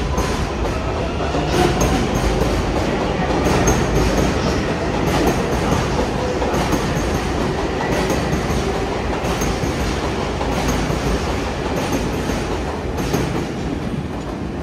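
R188 subway train on the 7 line running by at speed, a steady heavy rumble with its wheels clacking in small groups over the rail joints.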